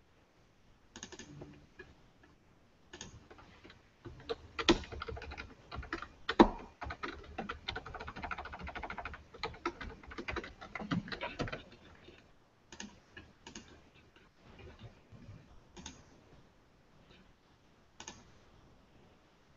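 Typing on a computer keyboard: a few scattered keystrokes, then a dense run of rapid typing for several seconds in the middle, then occasional single key clicks.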